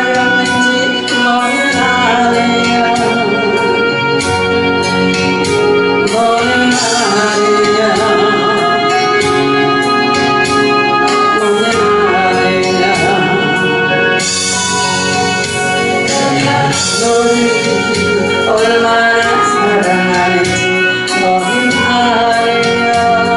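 A woman singing a Korean gospel song into a handheld microphone over instrumental accompaniment.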